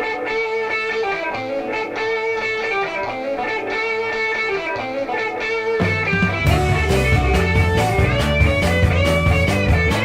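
The opening of a late-1960s blues-rock track: an electric guitar intro, with bass and drums coming in about six seconds in.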